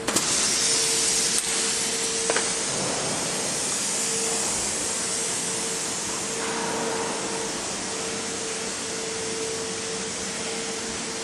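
Steady hiss of workshop machinery with a steady hum underneath, and a few light clicks in the first couple of seconds.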